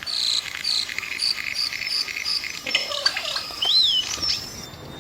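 Wild chirping of insects and birds: a high note repeated evenly about three times a second, then a short warbling whistle that rises and falls.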